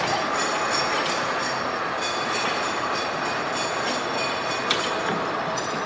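Machine-shop din: lathes and other machine tools running steadily, with a single sharp metallic click near the end.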